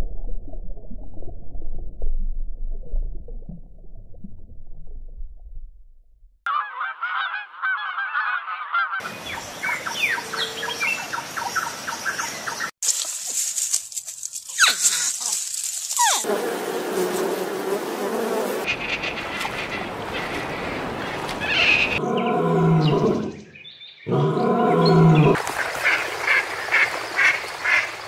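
A string of short animal sound clips spliced together, starting with a low rumble and changing abruptly several times. In the last few seconds mallard ducks quack repeatedly.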